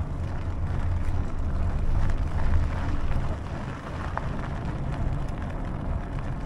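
Steady rushing wind noise on the action camera's microphone with the low rumble of fat bicycle tyres rolling along while riding a fatbike, and a few faint ticks.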